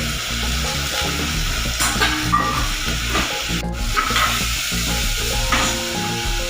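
Pressure cooker on the boil, hissing and sputtering steadily as steam and froth escape around its weight valve, with a few brief louder spurts.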